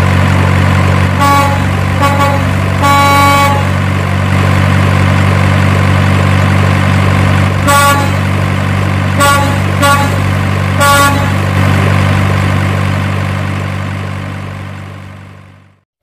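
A large truck's engine running steadily with a series of horn honks: short blasts about a second and two seconds in, a longer one around three seconds, and four more between about eight and eleven seconds. The engine sound fades out near the end, which marks an added truck sound effect.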